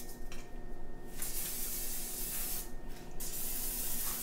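Aerosol cooking spray can hissing as it greases a slow cooker crock, in two long bursts of about a second and a half each, the second starting about three seconds in.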